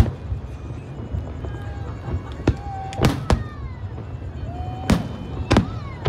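Aerial fireworks shells bursting overhead: about half a dozen sharp bangs at irregular intervals, the strongest about three and about five seconds in, over a steady low rumble.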